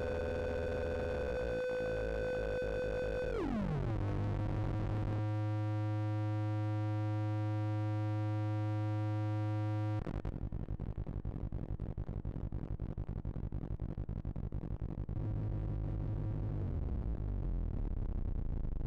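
Kinetik Laboratories GORT The Robot drone synthesizer sounding a steady, many-toned electronic drone. About three seconds in, its pitch glides down and then holds. About ten seconds in, the sound changes abruptly to a rougher, rapidly flickering texture, and near the end the pitch drops again.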